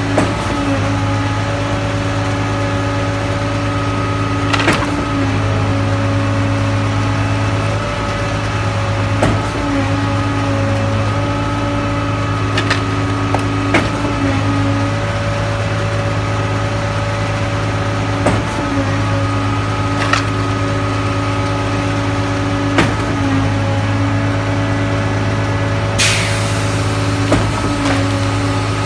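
Concrete pump running steadily with a low hum, a knock about every four and a half seconds as it strokes. A few other clanks and a short hiss near the end.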